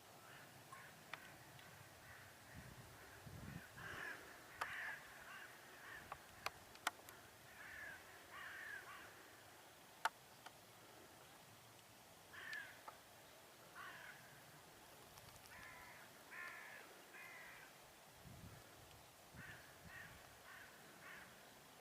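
A bird calling over and over in short series of two or three calls, with a few sharp clicks among them.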